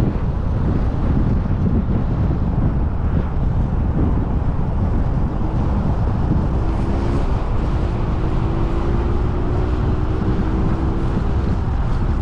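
A car driving, with a steady low rumble of road and wind noise buffeting the microphone. A faint tone rises slowly through the second half.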